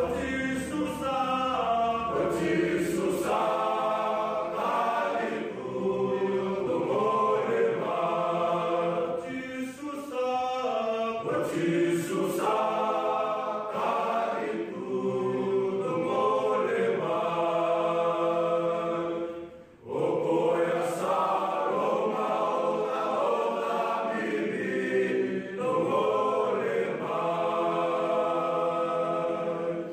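Choir singing a slow song in harmony, with long held notes; it breaks off briefly about two-thirds of the way through, then resumes.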